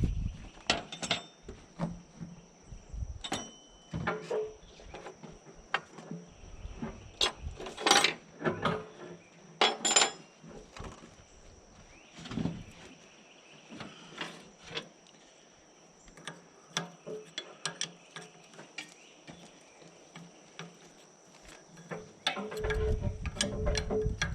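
Scattered metallic clinks and knocks from hand work on the skidder, over a steady high-pitched insect drone. A low rumble comes in near the end.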